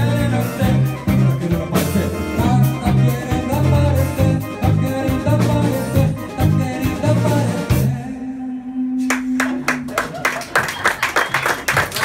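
Live band of singer, electric guitars, bass, keyboards and drums playing the end of a song. It stops suddenly about eight seconds in, with one low bass note ringing on for about a second. Then the audience starts clapping and applauding.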